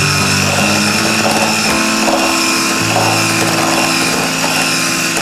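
Electric mixer running steadily, its beaters whipping thick cake batter, with a continuous motor whine. Soft background music with sustained notes underneath.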